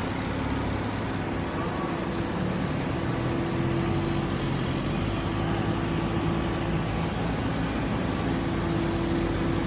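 Horizontal baler machinery running with a steady hum and a constant low tone.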